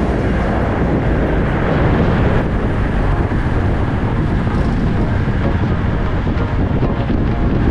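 Wind rushing over a bike-mounted action camera's microphone while riding along a road: a steady, loud, low rumble.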